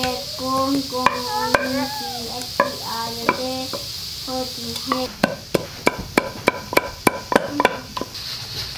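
Wooden pestle pounding in a wooden mortar: scattered knocks at first, then a steady run of about four strikes a second over the second half. A voice is heard through the first half.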